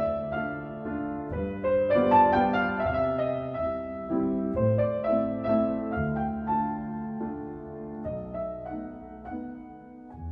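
Background piano music: a gentle tune of single notes over fading chords.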